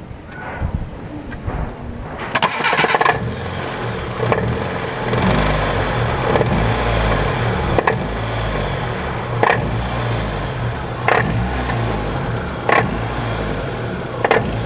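An automatic-transmission car's engine cranked by the starter a couple of seconds in, catching and settling to an idle. A sharp knock comes about every second and a half, a knock the title puts down to a flywheel issue.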